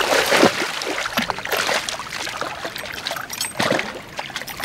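A hooked Murray cod thrashing at the water's surface during the fight, making a series of splashes, the loudest at the start.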